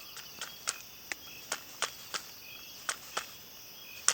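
Sharp clicks and snaps, about ten of them and irregularly spaced, over a faint, steady chirping of insects.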